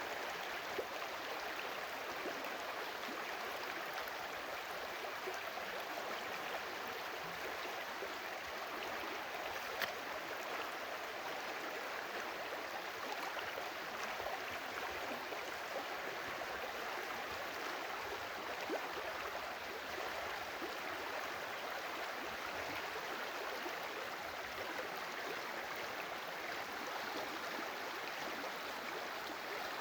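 A stream of water flowing, a steady even rush with a few brief ticks.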